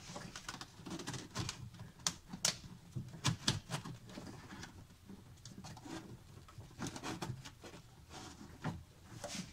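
Irregular clicks, taps and rustling of a corrugated rubber accordion hose and its fittings being handled and pushed into place by hand, with the sharpest clicks clustered around two to three and a half seconds in.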